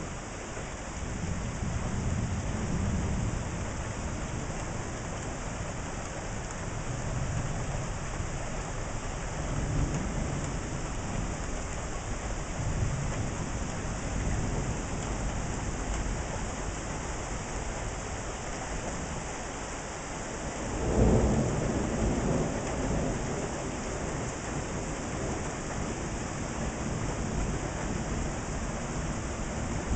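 Steady rain falling through a thunderstorm, with low rolls of distant thunder. About two-thirds of the way through, a louder, sharper clap of thunder breaks in and rumbles off.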